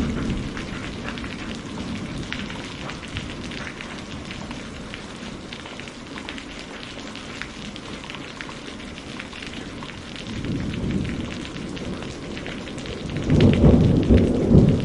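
Heavy rain falling steadily with dense drop patter, and thunder rumbling: a low rumble dies away at the start, and another builds from about ten seconds in and is loudest near the end.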